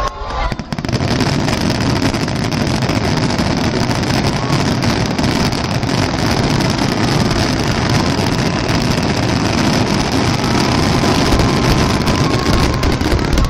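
Fireworks finale barrage: many shells bursting in quick succession, their bangs and crackle merging into one continuous loud rumble.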